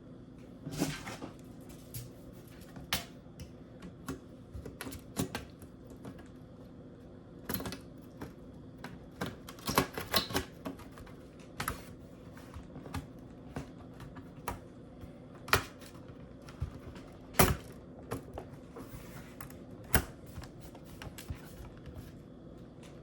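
Irregular light clicks and taps, a few sharper, some in quick clusters, of small tools and parts being handled on a MacBook Pro laptop under repair.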